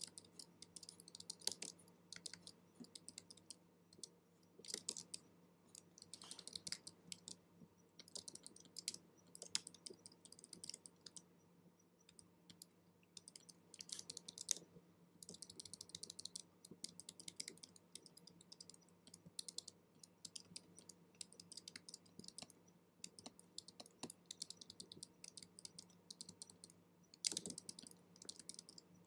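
Faint, irregular clicking and light scratchy tapping from a stylus dabbing on a drawing tablet, mixed with keyboard key presses, in uneven clusters. The clicks are a little louder about 27 seconds in.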